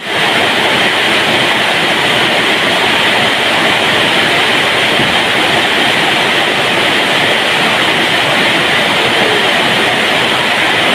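Heavy rain falling, a loud, steady, dense hiss with no let-up.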